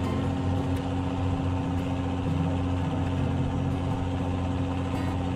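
A fishing boat's engine running with a steady, even drone.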